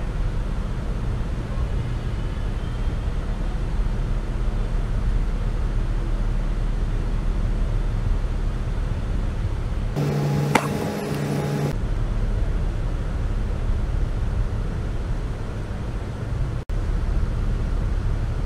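Tour boat's engine running steadily under way, a low drone mixed with water rushing along the hull and wind. About ten seconds in, a break of under two seconds brings a different hum and a short high squeak, and there is a split-second dropout near the end.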